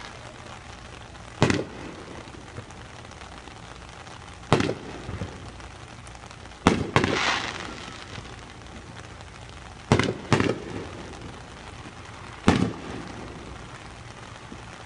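Aerial fireworks shells bursting: six sharp booms a few seconds apart, two of them close together about ten seconds in. The boom about seven seconds in is followed by a crackling spray lasting about a second.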